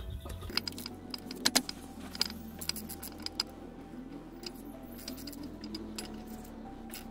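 Metal tools and parts clinking and rattling in irregular sharp clicks, most of them in the first few seconds.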